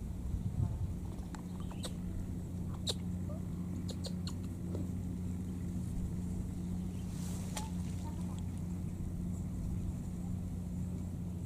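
Light crackles and ticks of dry grass and twigs scattered through the first two-thirds, as a baby monkey walks over them, over a steady low hum.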